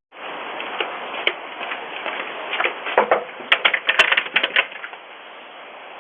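A thin, steady hiss with a run of irregular sharp clicks and taps, thickest around the middle.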